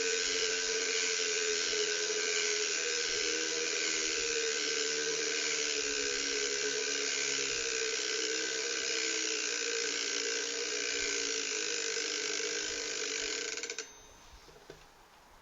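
Superstar Components Trizoid rear hub freewheeling, its 120-engagement ratchet giving a steady, fast mechanical buzz as the wheel spins; it stops abruptly near the end, leaving a few faint clicks.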